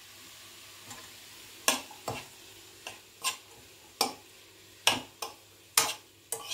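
A steel spoon stirring radish and greens in a kadhai, clacking and scraping against the pan about nine times at an uneven pace, starting a little under two seconds in, over a faint steady sizzle from the pan.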